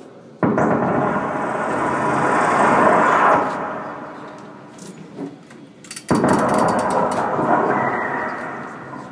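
Live harsh-noise music performance: a dense wall of rumbling static cuts in abruptly, swells and fades away, then cuts in again suddenly near the end.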